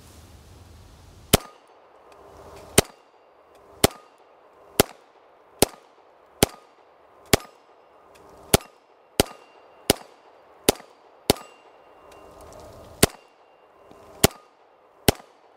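An original Beretta M9 9mm pistol fired fifteen times at a steady, unhurried pace, about a shot a second, with hits on steel plates ringing faintly after the shots.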